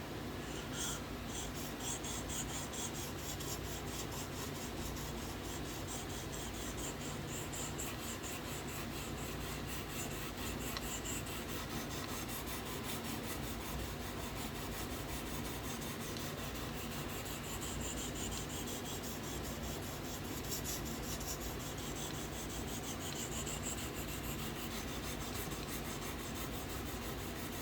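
A fine 1500-grit sharpening stone on a guided rod rubbing back and forth along a knife's bevel in steady, continuous strokes. It is testing the angle by wearing off a Sharpie line on the edge.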